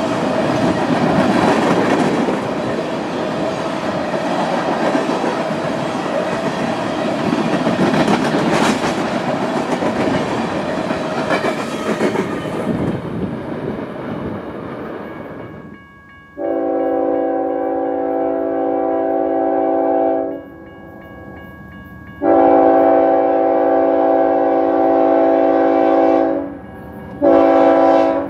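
Freight tank cars rolling past with steady wheel-on-rail noise that fades away, then a BNSF diesel locomotive's multi-chime air horn: two long blasts and a short one, the start of the long-long-short-long grade-crossing signal.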